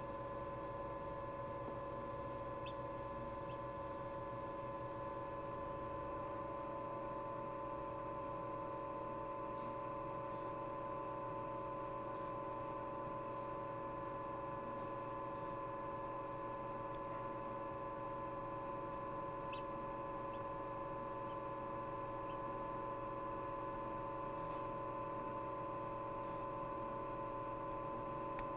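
Egg incubator running with a steady, unchanging hum.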